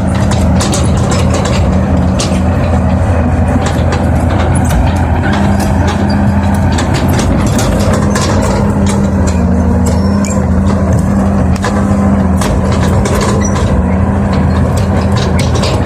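Heavy diesel engine running steadily at a low, even hum, with frequent short clicks and rattles over it.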